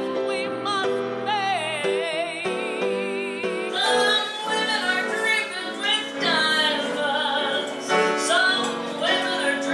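A woman singing a show tune with a wide, even vibrato over instrumental accompaniment. About four seconds in, it cuts to a different woman singing in a more choppy, declaimed style.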